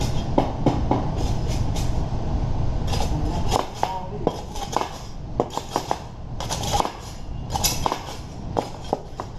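Metal clinking and clanking of lift hooks and tools against a steel commercial grate, many short knocks, over a low rumble that falls away about three and a half seconds in.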